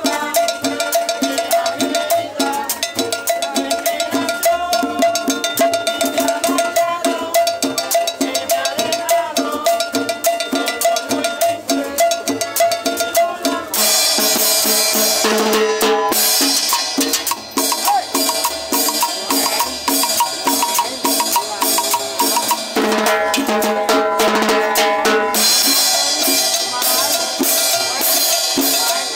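Cumbia played by a band, with percussion keeping a steady, quick beat. About halfway through the music grows brighter and fuller, eases back briefly, then fills out again near the end.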